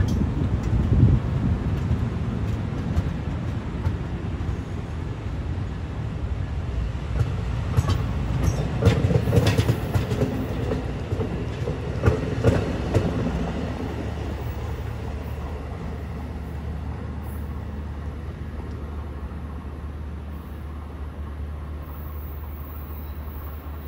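NJ Transit bilevel commuter coaches rolling past close by: a steady rumble of wheels on rail, with a run of clicks from the wheels over rail joints about eight to thirteen seconds in. The sound then fades gradually as the train pulls away down the line.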